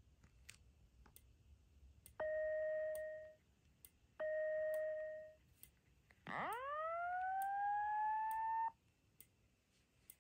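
Simplex 4903-9167 fire-alarm speaker strobe sounding the alert tone of the default Simplex voice-evacuation message. It gives two steady one-second beeps, then a long rising whoop, with a second whoop starting near the end. Faint ticks repeat evenly underneath.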